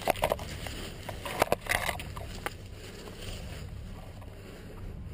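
Leaves and branches rustling and snapping against the body-worn camera as it pushes through undergrowth, in a cluster of crackles in the first half, over a steady low rumble of wind and movement on the microphone.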